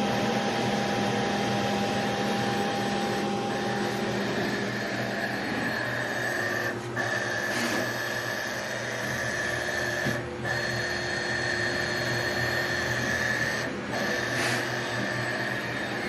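Fanuc A06B-6117-H303 servo amplifier test rig running: a steady machine whine over a low hum. It briefly dips three times, about every three and a half seconds.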